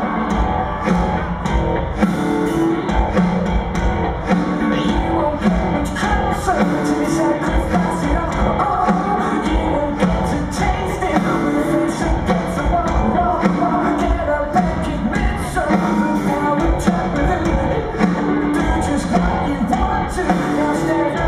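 Rock band playing live in an arena, heard from the crowd: drum kit, electric guitar and bass, with a singer's voice over them and the sound echoing through the hall.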